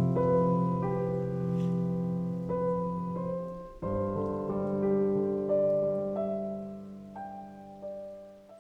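Soft solo piano music, slow sustained chords that fade out at the end.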